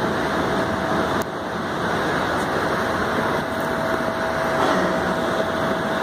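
Steady room noise: a constant rushing hiss with a faint steady hum, and a single click about a second in.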